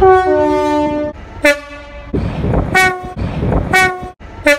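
Railway locomotive horns: a long two-tone blast, then four short toots, with the rumble of a train running between them.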